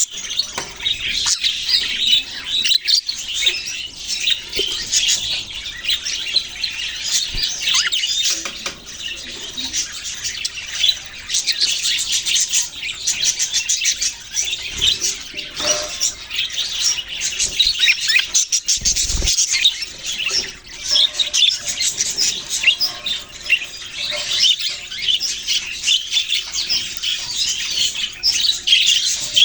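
A flock of budgerigars chattering and warbling in a dense, continuous stream of rapid high chirps, with a single low thump about two-thirds of the way in.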